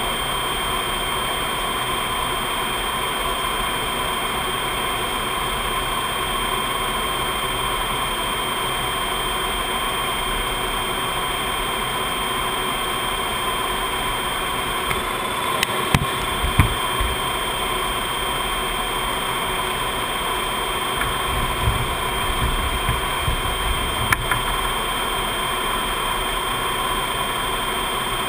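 Steady cockpit noise of a C-5 Galaxy in cruise: a constant rush of airflow and jet engines with several steady whining tones over it. A few short low thumps come about halfway through, and more follow later.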